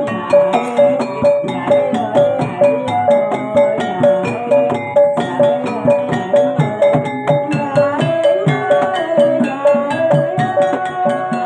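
Jaranan (kuda lumping) dance music from a gamelan-style ensemble: ringing pitched metal percussion and drums keep a steady beat of about two strokes a second.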